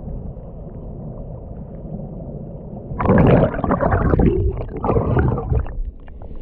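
Muffled underwater rumble heard through a camera held in a shallow tide pool. About three seconds in it gives way to loud bubbling and sloshing as air bubbles stream past the microphone, and this eases off just before the camera comes up out of the water.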